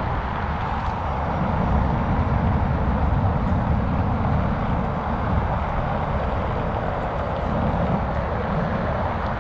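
Steady outdoor city ambience: a continuous low rumble under an even hiss, with no distinct events standing out.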